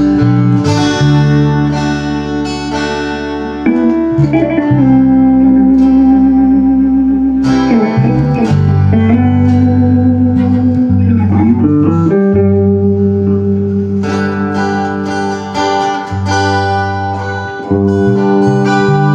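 Acoustic guitar playing in an improvised jam, plucked and strummed. It is joined by long held notes that bend and slide in pitch, near the middle.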